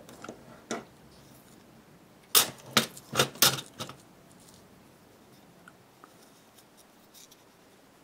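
Handling noise: a few sharp clicks and knocks from tools and a wooden block being moved about close to the microphone, bunched together a couple of seconds in, then only faint room tone.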